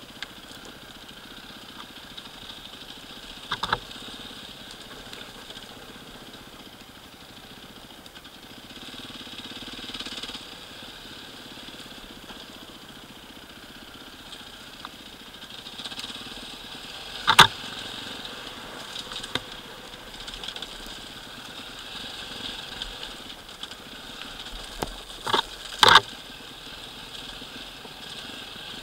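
Enduro dirt bike engine running as the bike rides down a rocky trail, with a few sharp knocks from the bike going over the stones, loudest a little past halfway and twice in quick succession near the end.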